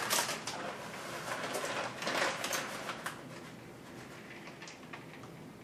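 Plastic bag of shredded cheddar cheese crinkling and rustling as it is shaken out over a bowl of chopped broccoli, with small crackles. Busiest in the first three seconds, then fainter.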